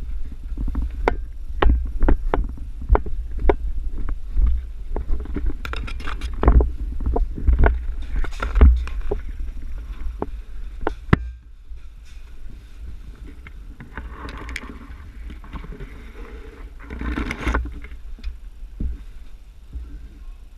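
Footsteps and knocks of gear, about two a second, over the low rumble of handling and wind noise on a body-worn camera; after about eleven seconds the steps stop and only rustling and a couple of brief scuffs remain.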